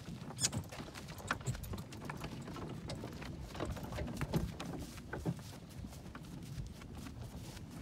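Draft mare's hooves clip-clopping at a walk on a soft dirt track as she pulls a cart, with scattered clicks and rattles from the harness chains and cart.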